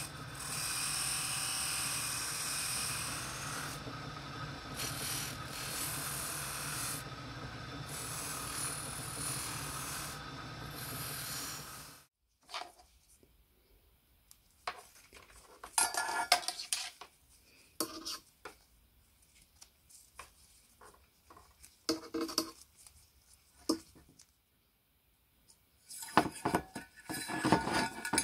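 Motor-driven cloth buffing wheel spinning steadily, polishing a brass lamp burner held against it; it stops abruptly about twelve seconds in. After that come intermittent light rustling and metallic clinks of thin wire and sheet-metal lamp parts being handled, busiest near the end.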